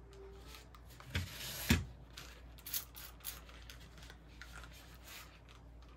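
Paper towel wiping and rubbing over a fused glass panel, with two light knocks about a second in as the glass is handled, then softer rubbing and a few small clicks.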